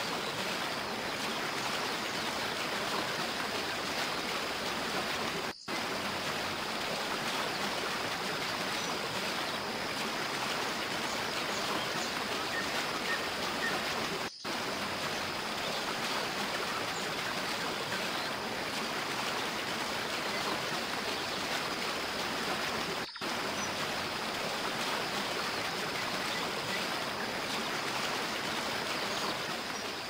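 Waterfall rushing in a steady, even roar of falling water, cutting out for an instant three times, about every nine seconds.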